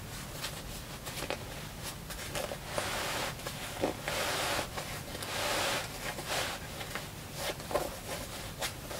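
Cloth rustling and swishing as a cotton half-width obi is wrapped, pulled snug and tied over a cotton-linen kimono, with longer swishes about three and five seconds in and a few light ticks between.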